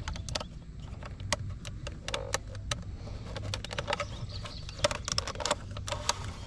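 A pry tool working the power window switch out of a 2003 Toyota Camry's plastic rear door panel: a string of small plastic clicks, creaks and scrapes.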